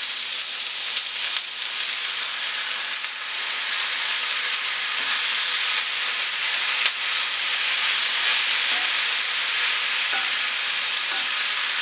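Diced raw chicken breast and chopped peppers sizzling in hot oil in a frying pan, a steady hiss, as they are stirred with a spatula. A few light clicks of the spatula against the pan, the sharpest about seven seconds in.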